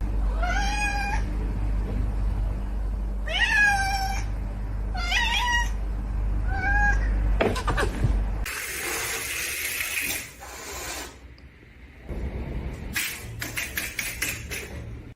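A domestic cat meowing four times in the first half, each call rising and then falling in pitch. This is followed by a few seconds of hissing noise and then a run of quick clicks or knocks near the end.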